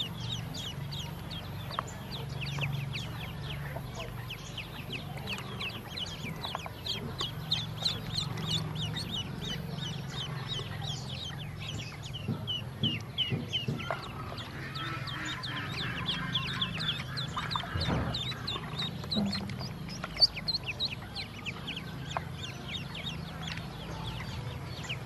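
A group of ducklings peeping without a break, many short, high, downward-falling peeps overlapping one another. A steady low hum runs underneath, and there are a couple of sharp knocks around the middle.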